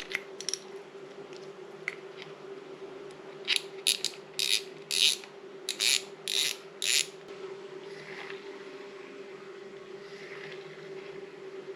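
Freshly reassembled and greased Shimano fishing reel being worked by hand: about seven short mechanical bursts, each a fraction of a second, in the middle of the stretch, over a faint steady hum.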